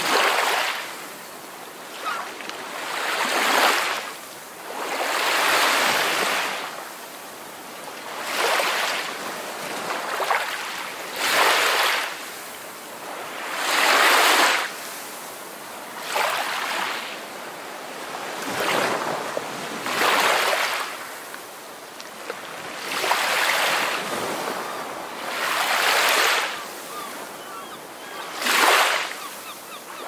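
Ocean surf: waves washing in one after another, each rising to a rush and falling back, about every two to three seconds.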